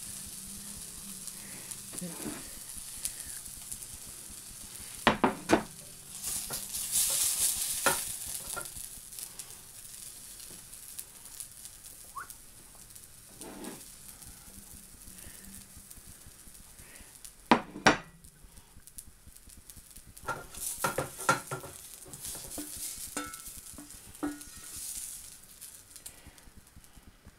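Beef burger and onions sizzling in a non-stick frying pan, with a plastic spatula scraping and knocking against the pan as the food is lifted out. The sizzle flares briefly, then fades toward the end.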